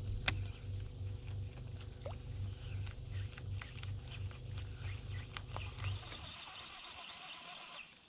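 Low, pulsing hum of a boat's motor with a steady tone in it, which cuts off about six seconds in. Scattered short clicks and chirps sound over it.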